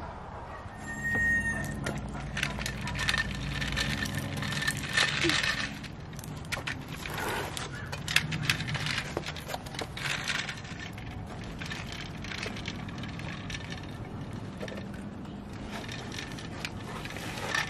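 Toy roll-off garbage truck, a die-cast scale model, pushed along concrete: its wheels roll and scrape with many small clicks and rattles of its parts. A low hum runs under the first few seconds.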